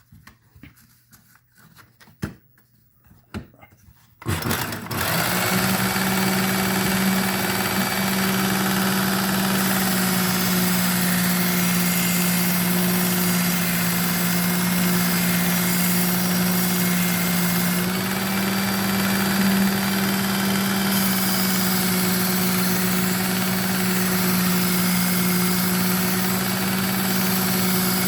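A few small handling clicks, then about four seconds in a Work Sharp Ken Onion belt sharpener is switched on, with the medium belt fitted. Its motor runs steadily with a low hum and a fainter whine, under the noise of the moving belt.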